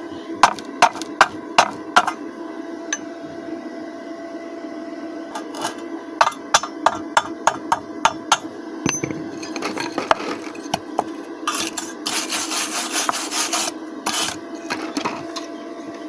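Sharp strikes on metal in two runs of several blows each, typical of a chipping hammer knocking slag off a stick weld. These are followed by a couple of seconds of harsh scraping over the metal. A steady hum sits underneath throughout.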